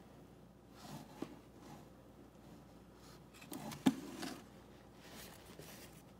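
Aluminium foil pie trays being handled on a metal oven rack with an oven mitt: faint scraping and rustling, with two sharp knocks, one about a second in and a louder one near the middle.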